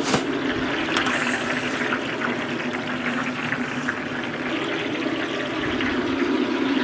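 Hot cooking oil bubbling and sizzling steadily while aromatics fry in it for a Sichuan hotpot base, with a short clink near the start and another about a second in.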